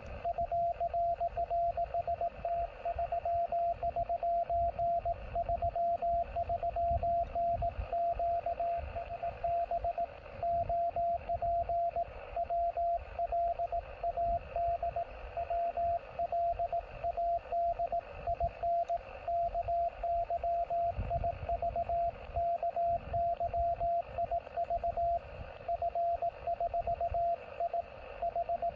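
Morse code (CW) received on a portable HF transceiver on the 15-metre band: a single tone of about 700 Hz keyed on and off in dots and dashes, over a steady hiss of band noise. The distant station is sending its call sign, a 33N signal report with fading (QSB), its operator's name and Kyiv as its location, and ends its turn with K.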